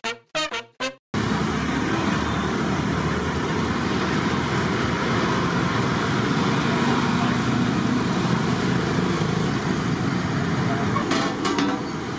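Short end of a music sting with brass stabs, cut off about a second in, giving way to steady street traffic noise from road vehicles passing. A few short clanks come near the end.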